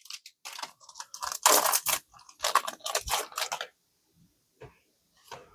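A trading card booster pack's wrapper crinkling and tearing as it is ripped open: a run of sharp crackles for a few seconds, then only a few faint rustles.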